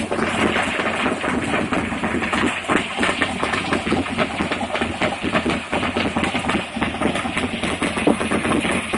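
Ford 408 cubic-inch Windsor small-block V8 with a solid roller camshaft, idling through a side-exit exhaust; the exhaust pulses come unevenly.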